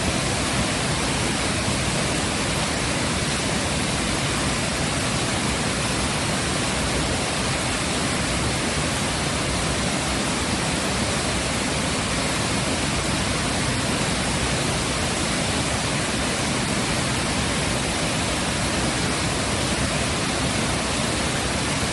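Waterfall rushing: a constant, even roar of falling water that does not change.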